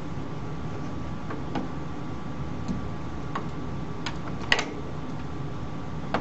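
A few scattered light clicks and taps, the loudest about four and a half seconds in, over a steady background hiss.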